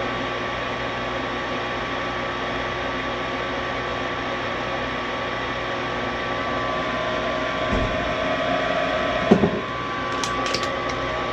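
Gas furnace's draft inducer motor running steadily with a hum and whine during a startup test, before the hot surface igniter glows. A second tone joins about six and a half seconds in and stops just after nine seconds, with a low thump, then a knock, and a few sharp clicks near the end.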